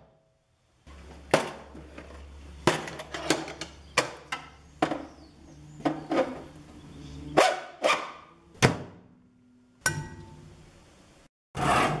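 Assorted metal and plastic objects being struck and tapped one after another to sample their sounds: a string of sharp knocks and clanks, several ringing briefly with a low pitched tone.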